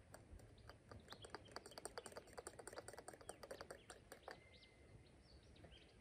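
Wild birds calling faintly: a fast run of clicking, chattering notes mixed with short whistled slides from about a second in until past the middle. A thin, steady high note follows near the end.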